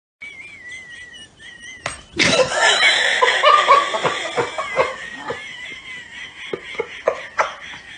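People laughing loudly in choppy bursts, breaking out about two seconds in after a faint high wavering tone, with a few sharp slaps or knocks mixed in.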